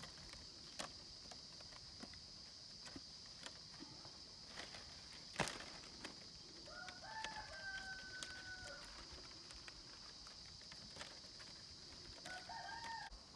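A rooster crows about seven seconds in, one call of roughly two seconds ending in a long held note, and gives a shorter call near the end. Scattered light clicks and snaps of thin bamboo strips being worked by hand, one sharper snap in the middle, over a steady faint high hiss.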